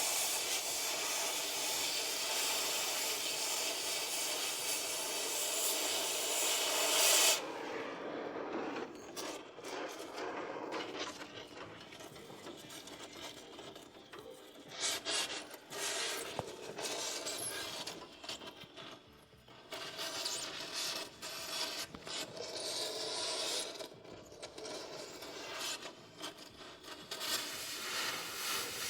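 Metal fabrication work in a shop: a steady hissing, grinding noise for about seven seconds that cuts off suddenly, followed by irregular scraping and rubbing.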